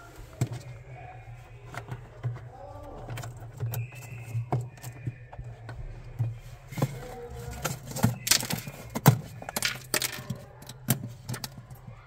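Irregular clicks, taps and light rattles of a hand handling the wiring and parts at a refrigerator's freezer evaporator, busiest and loudest a little past the middle, over a low steady hum.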